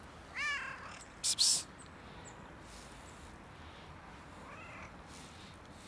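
Tabby-and-white domestic cat meowing: one clear meow that rises and falls about half a second in, and a second, fainter meow near the end. A brief loud rustle sounds just after the first meow.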